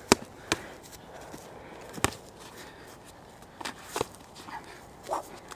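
Gloved punches landing, a few sharp slaps about a second or two apart, the loudest right at the start and about two seconds in, with feet shuffling on dry grass in between.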